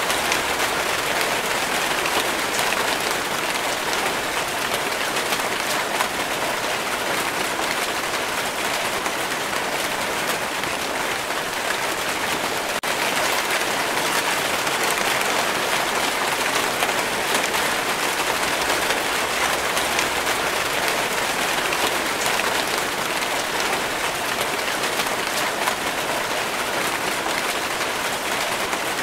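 Steady rainfall: an even hiss of rain with a fine patter of individual drops.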